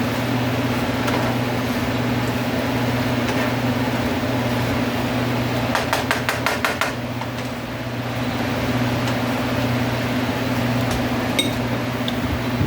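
Scrambled eggs, green pepper and mushrooms cooking in a frying pan, an even hiss over a steady low hum. About six seconds in, a spatula knocks against the pan in a quick run of about seven strokes.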